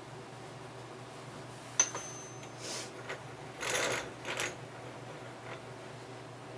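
A sharp metallic clink that rings briefly, then a few short scraping and rattling handling noises as a steel workpiece is shifted and set up in a machine vise, over a low steady hum.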